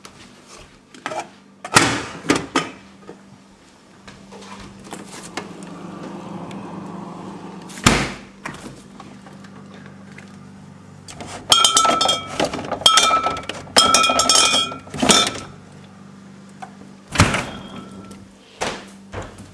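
Household sound effects: a few sharp knocks and thuds, then a run of clattering, ringing clinks in the second half, over a steady low hum.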